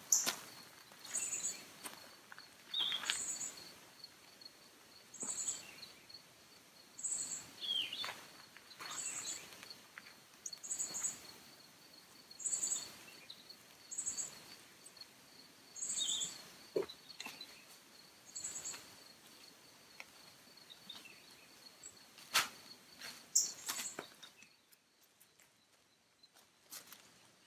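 Natural outdoor ambience: a steady high-pitched trill with a short high call repeating about every two seconds, a few bird chirps, and light footsteps in leaf litter. Two sharper knocks come near the end.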